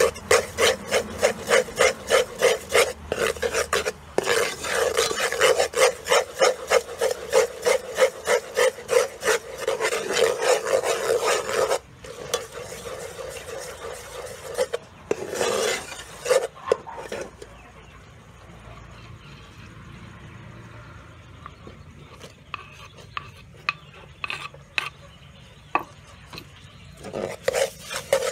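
A metal ladle scraping and stirring caramelized sugar sauce around the bottom of an aluminium pot, in quick strokes about four a second. About twelve seconds in the stirring stops and it goes quieter, with a short burst of stirring a few seconds later and strokes starting again near the end.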